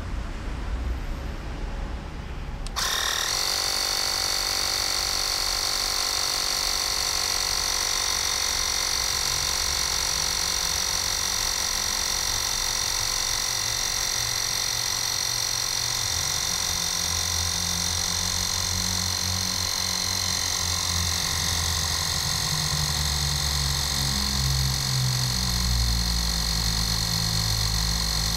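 Bosch EasyPump cordless mini compressor switching on suddenly about three seconds in, then running steadily with a high-pitched whine as it inflates a motorcycle tyre.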